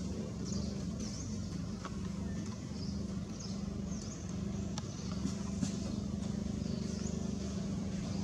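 Steady low motor hum, like a running engine, with short high chirps that dip and rise, repeating about once a second.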